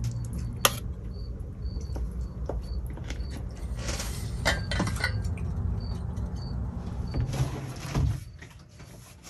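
Household items being handled: scattered clicks and light knocks as a bottle and a plastic water jug are picked up and moved about on a counter, over a low rumble that fades out about eight seconds in.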